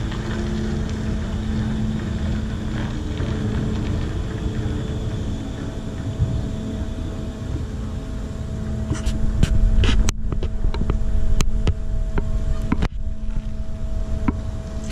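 Moored car ferry's engines running with a steady hum. About two thirds of the way in, heavier low rumbling and a few sharp knocks come in.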